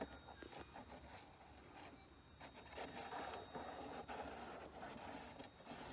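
Faint, irregular scraping and rustling of dirt and gravel being handled, a little louder from about halfway through.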